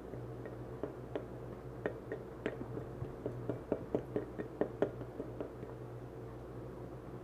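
A person chewing fried shrimp with short wet mouth clicks and smacks, coming more often in the middle, over a steady low hum.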